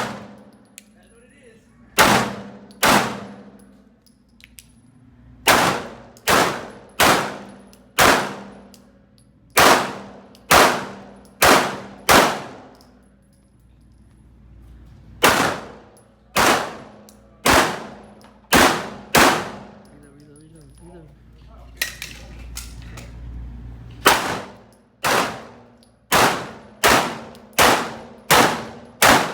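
Glock 19 9 mm pistol firing about two dozen shots during a practical-shooting stage, spaced roughly a second apart in strings of several shots, with pauses of two to three seconds between strings as the shooter moves or reloads.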